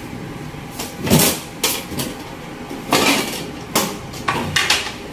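Plastic food bags and tableware being handled: a series of about six short crinkles and knocks, spread unevenly.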